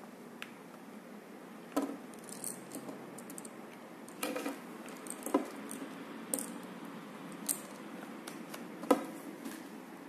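Irregular clicks and light rattles of a small USB fan gadget being handled: its USB plug and metal gooseneck cable knocking against the laptop and tabletop, about half a dozen sharp clicks with the loudest near the end, over a faint steady hiss.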